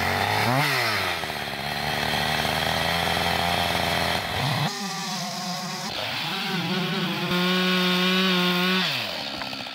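Husqvarna XP two-stroke chainsaw revving up and cutting a vertical slot down into a red oak stump, its engine pitch steady under load. Near the end it holds a high rev, then drops back.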